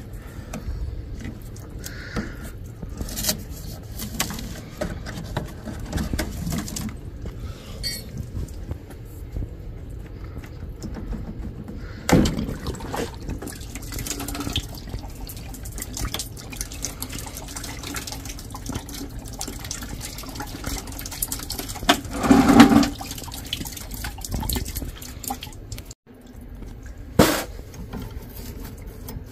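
Water running and dripping as the water heater's plumbing is drained, with a few sharp knocks of metal parts, the loudest about two-thirds of the way through.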